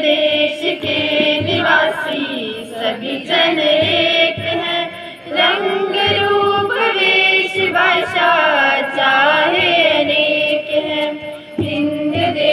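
A group of children singing a song together in chorus, with low thuds keeping a beat under the voices.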